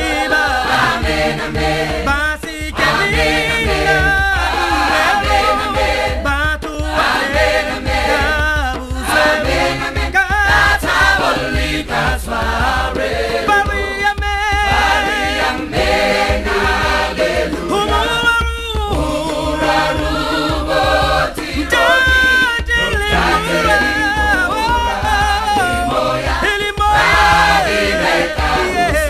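A choir singing unaccompanied in several-part harmony, a hymn-like song with 'amen' in its words.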